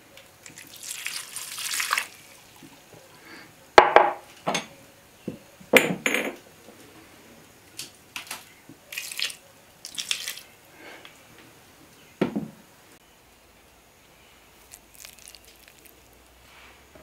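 Rum poured from a small tin cup, then wine from a dark bottle, splashing into a glazed ceramic bowl of minced beef. The first pour swells and grows louder over about a second; sharp knocks and clatters follow as the vessels are handled and set down.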